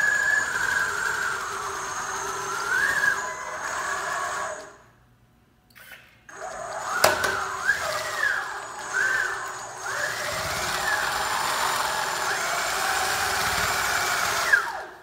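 Remote-control tracked aircraft tug's electric drive motors whining, the pitch rising and falling as it manoeuvres. The motors stop for about a second and a half about five seconds in, start again with a sharp click, and cut off near the end.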